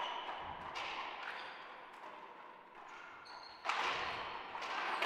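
Racquetball rally: the hard rubber ball smacking off racquets and the court walls in a string of sharp, echoing hits, the loudest a little over halfway, with brief sneaker squeaks on the hardwood floor.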